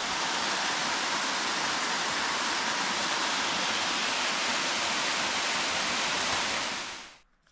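Small waterfall cascading down a rock face into a pool: a steady rush of falling water that fades out near the end.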